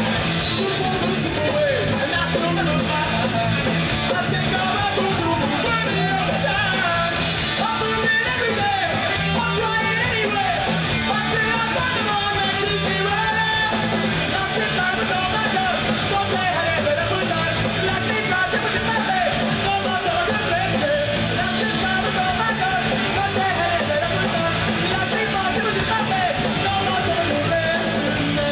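Punk rock band playing live: electric guitars with a man singing and shouting into the microphone over the band.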